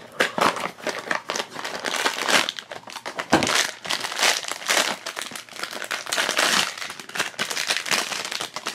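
Silver foil blind-bag wrapper crinkling and crackling as hands handle and open it, a dense run of irregular crackles.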